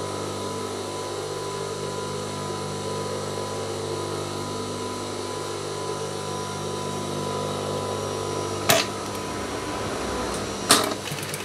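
Industrial sewing machine's motor humming steadily while it idles between seams. About three-quarters of the way in there is a sharp click, and near the end a short clatter of clicks follows.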